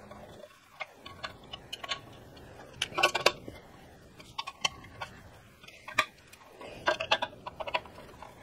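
Hand socket ratchet clicking in short runs of quick ticks with pauses between, as the skid plate bolts are snugged down; the loudest run comes about three seconds in.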